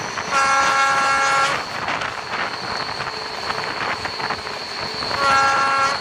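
ČD Class 742 diesel-electric locomotive sounding its horn twice while running: one blast of about a second shortly after the start, and a shorter one near the end. Between the blasts there is steady engine and wheel-on-rail running noise with a thin high whine.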